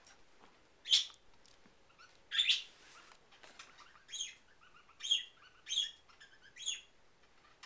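A dog whining: a series of short, high-pitched whines, roughly one a second.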